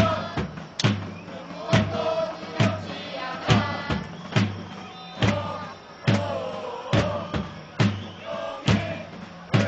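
Football supporters chanting a song together over a big supporters' drum beaten steadily, a little faster than once a second.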